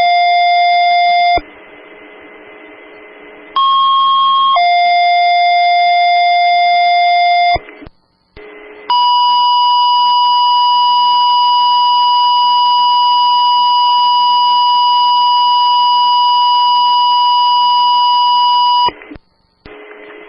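Fire dispatch alert tones over a scanner radio. There are two two-tone pages, each a brief higher tone followed by a lower tone held about three seconds, then one steady tone held about ten seconds, with radio hiss in the short gaps between them.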